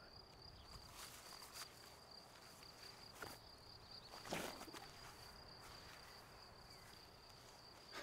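Faint, steady high trill of crickets in the grass, with a few soft knocks and a brief louder rustle about four seconds in.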